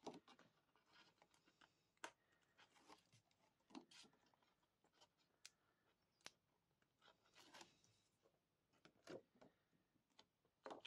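Near silence, broken by faint, irregular small clicks and rustles of paper and plastic being handled: backing peeled from thin double-sided tape on a card front and a clear acetate sheet laid over it.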